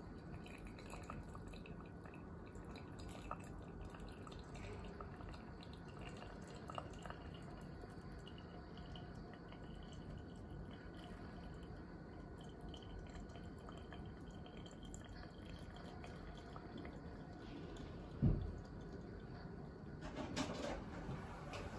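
Hot water poured in a thin, slow stream from a kettle onto coffee grounds in a gold metal cone dripper, trickling and dripping through into the glass server. The pour stops a few seconds before the end, followed by a single soft thump.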